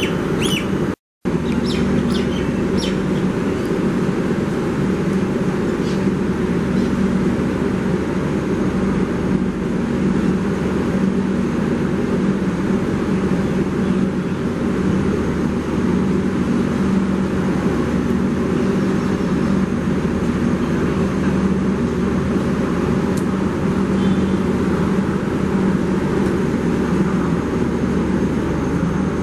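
Steady drone of a stationary train's machinery idling: a constant low hum over a rumble. There are a few faint clicks in the first seconds and a brief cut in the sound about a second in.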